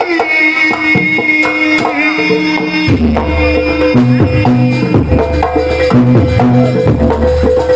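Jaranan ensemble music: hand drums (kendang) and gamelan percussion playing over held pitched tones. A deep, repeating low beat joins about three seconds in.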